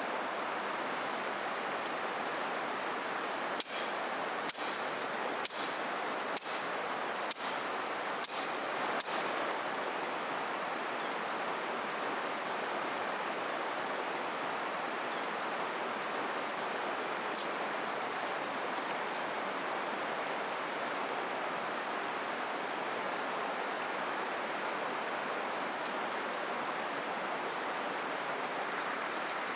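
River flowing steadily, with a run of about eight sharp metallic clinks, roughly one a second, starting a few seconds in.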